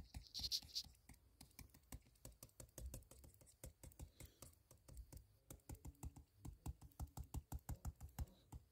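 Many light taps on a touchscreen, a few a second, as short drawing strokes are made.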